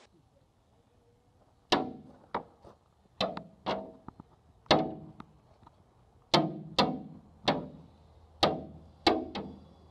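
A monkey banging its hands against the glass front of its enclosure: about ten sharp knocks, each ringing briefly through the pane, coming in uneven bursts.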